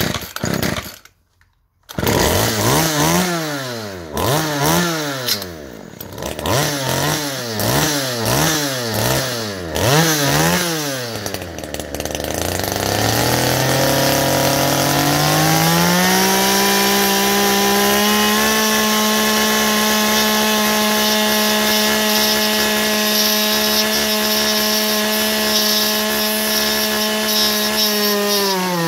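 Poulan Pro two-stroke chainsaw engine catching about two seconds in and revving up and down in quick blips. It then climbs to a steady, high-pitched full-throttle run for over ten seconds and shuts off near the end.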